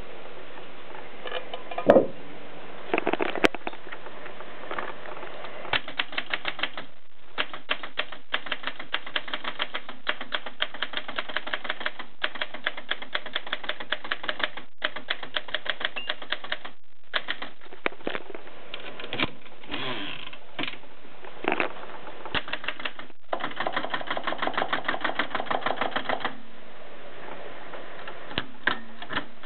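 1923 Adler 7 manual typewriter being typed on: keys striking in quick runs of clicks broken by short pauses, with a louder knock about two seconds in and a fast burst of keystrokes near the end.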